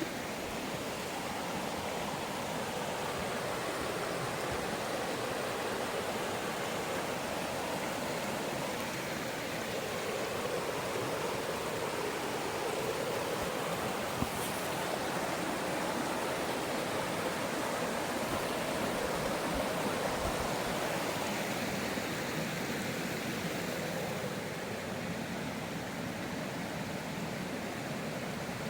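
Mountain stream running steadily: an even wash of moving water that swells a little around the middle.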